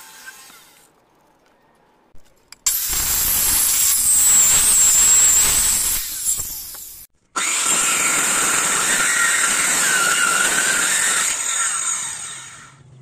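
Handheld electric circular saw running and cutting through a teak beam, a loud high whine whose pitch wavers under load. It cuts out abruptly about seven seconds in, runs and cuts again, then winds down near the end.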